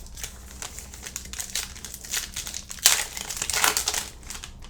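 Crinkling of a foil trading-card pack wrapper being torn open and handled, loudest about three seconds in.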